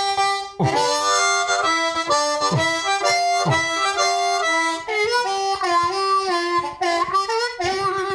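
Metal-bodied Seydel 1847 Lightning harmonica being played: a phrase of separate notes, each with a breathy attack, then wavering notes, settling into a held note near the end.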